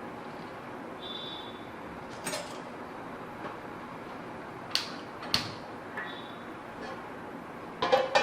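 Gas stove being lit and a pan set on the burner: a few sharp, separate clicks over a steady hiss, then a short clatter of knocks near the end.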